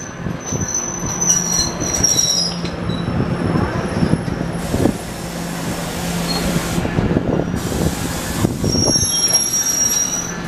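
An NJ Transit Multilevel coach train rolls slowly along the platform, its wheels clattering over the rails with a steady low hum underneath. High-pitched wavering wheel squeals rise over it near the start and again near the end.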